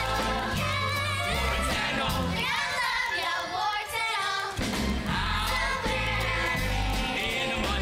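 A group of voices singing a musical-theatre song over instrumental accompaniment with a steady bass line. The bass drops out briefly around the middle.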